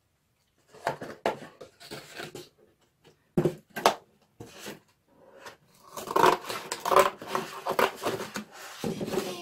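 Corrugated cardboard box being handled on a table: irregular scrapes, rustles and knocks of cardboard, starting about a second in and busiest in the last three seconds.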